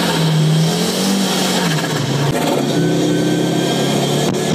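Rally car engine running hard, heard from inside the car, with its note shifting and briefly breaking about two seconds in.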